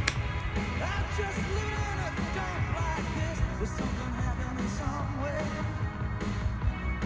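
A rock-and-roll song with a singer playing as background music, with a sharp click right at the start.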